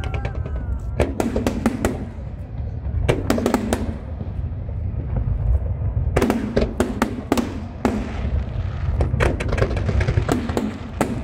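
Aerial fireworks shells bursting in quick clusters of sharp bangs, four groups in all, over a constant low rumble.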